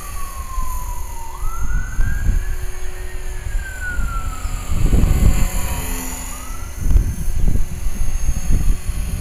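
Faint high-pitched whine of a small electric RC helicopter (HK-450, a T-Rex 450 clone) in flight, with a siren wailing, its pitch sliding slowly down and up about every five seconds. Gusts of wind rumble on the microphone, loudest about five and seven seconds in.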